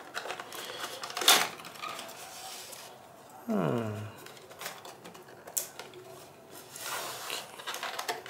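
Cardboard box and plastic clamshell packaging being opened and handled on a tabletop: rustling and scraping with scattered sharp clicks, the loudest a snap about a second in. A short sound falling in pitch comes about three and a half seconds in.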